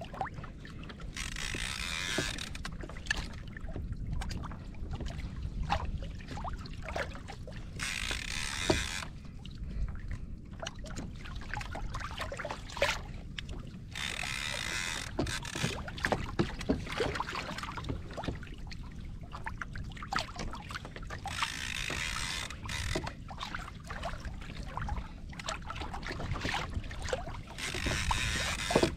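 Wind on the microphone and water around a fishing kayak, a steady low rumble, with a short hissing rush of noise about every six or seven seconds.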